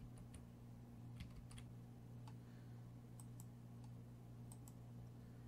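Faint computer keyboard typing and mouse clicks, a dozen or so irregular short clicks, over a steady low hum.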